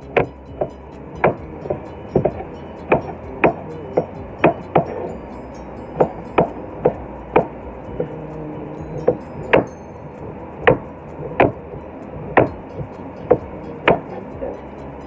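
Kitchen knife trimming the skin off a peeled pineapple, each downward slice ending in a sharp knock of the blade on the cutting board, unevenly spaced at roughly one or two a second over a steady background hum.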